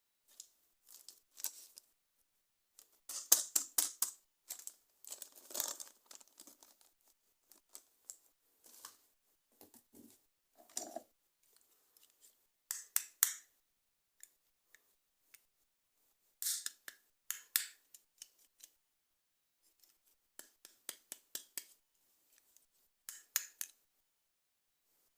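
Toy packaging being opened by hand: irregular bursts of crinkling, snipping and tearing with short quiet gaps between them.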